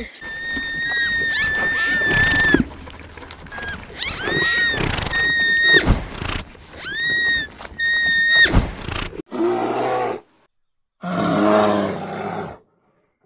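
About five high, held animal calls, each rising quickly and then holding its pitch, followed near the end by two deep roars of a big cat.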